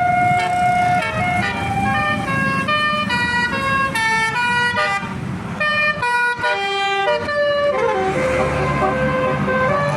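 Telolet bus horn playing a tune of short, stepped pitched notes, over the low running rumble of the bus.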